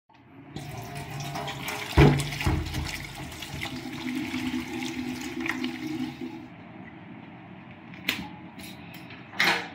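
Tap water running into a steel kitchen sink as an ash gourd is washed under it, with a loud knock about two seconds in. The water stops after about six and a half seconds, followed by a few sharp knocks, the loudest near the end.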